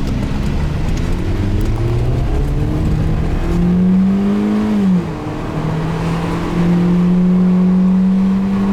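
Car engine accelerating hard at full throttle: its pitch climbs steadily for about five seconds, drops suddenly at a gear change, then rises again and holds high near the end.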